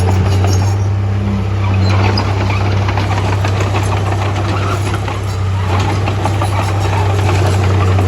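A heavy diesel engine running at a steady speed, a deep, even drone.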